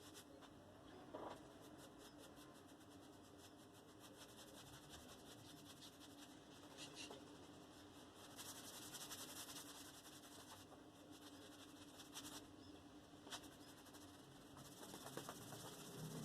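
Faint, dry scratching and rubbing made of rapid fine ticks, coming and going in short spells, with the workshop otherwise near silent.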